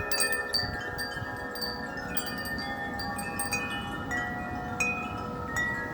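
Several wind chimes ringing continuously in gusty wind: many long, overlapping held tones, with frequent short, high strikes from smaller chimes on top, over a low rumble of wind.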